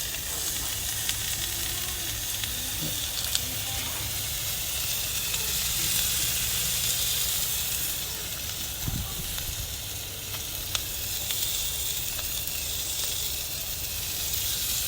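Halved crayfish frying in melted butter and garlic on a barbecue: a steady sizzle with a few faint pops.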